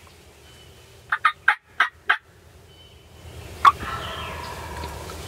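Wild turkey gobbler gobbling: a quick run of five short notes about a second in, then one sharp call near the end.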